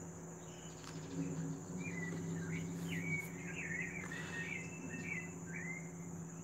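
Outdoor ambience: a steady high insect drone, with a bird giving a string of short wavering chirps from about two seconds in until about five, over a low steady hum.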